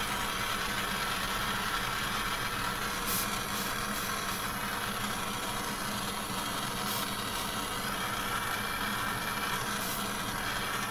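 Jeweler's soldering torch burning with a steady, even hiss as its flame warms a silver ring shank before soldering.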